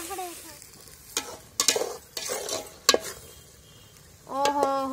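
Long metal spatula stirring and scraping chicken masala in a large metal pot, with a light sizzle and several sharp knocks of the spatula against the pot. Near the end, a brief steady voice-like tone lasts about half a second.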